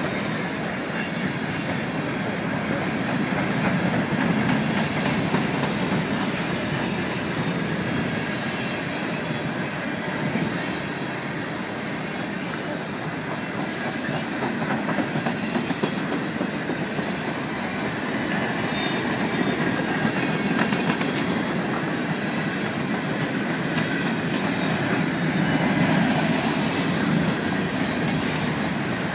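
Covered grain hopper cars of a long freight train rolling steadily past at close range: a continuous rumble of steel wheels on rail, with wheels clicking over rail joints.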